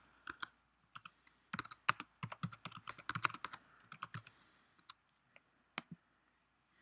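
Typing on a computer keyboard: a quick run of keystrokes for about four seconds, then a few single clicks spaced apart.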